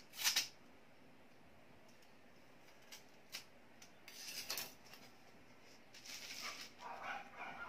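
Thin paper being handled and cut with a knife, short scratchy rustles and scrapes in a few bursts, the loudest a quick double one right at the start.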